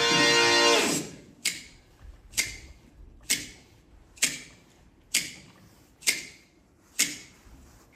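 Dance music cuts out about a second in, leaving a ticking-clock effect: seven sharp, evenly spaced ticks a little under a second apart, each with a short ring-out.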